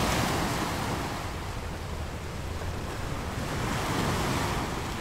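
Ocean surf washing onto a beach: a steady rush of waves that swells about four seconds in.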